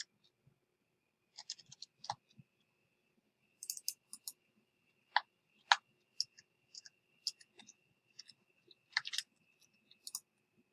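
Computer keyboard keys being pressed, scattered single clicks and short runs of clicks with gaps between them.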